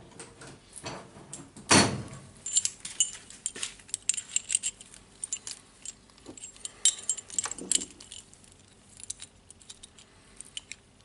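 Steel parts of an impact driver's hammer-and-anvil mechanism clinking and knocking together as they are picked up and handled. There is a louder knock about two seconds in, followed by many small metallic clinks.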